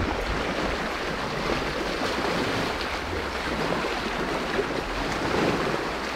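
Steady rush of a fast-flowing creek, with a low, unsteady rumble of wind on the microphone underneath.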